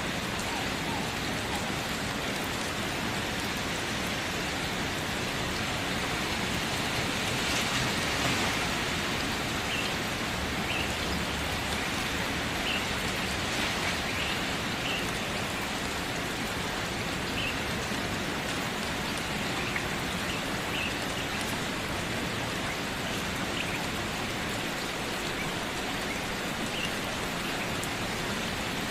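Steady rain falling, an even hiss that swells slightly about eight seconds in. Faint, short high-pitched chirps come now and then over it.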